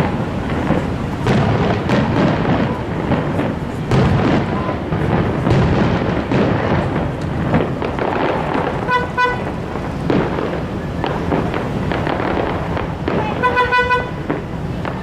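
Fireworks show: aerial shells booming and crackling one after another with hardly a gap. Twice, about nine and thirteen seconds in, a horn gives a short toot over the bursts.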